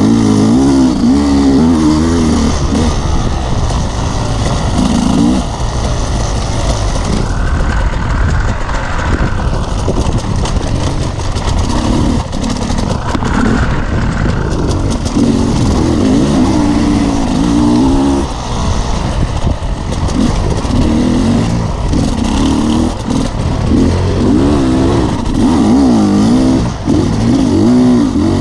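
Dirt bike engine, heard from a camera on the bike, revving up and down continually with the throttle, with short easings off between pulls.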